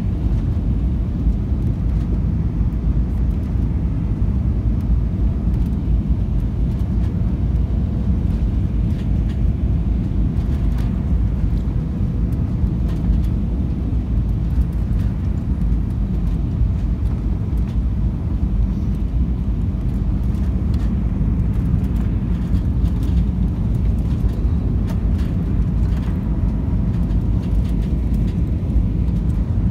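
Strong gusty wind buffeting the microphone: a steady low rumble that flickers throughout, with a faint distant jet-engine hum and a few light knocks.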